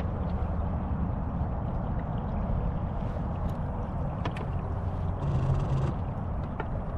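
Small boat moving slowly through shallow water on its electric trolling motor: a steady low hum and water noise with scattered light clicks, growing briefly louder about five seconds in.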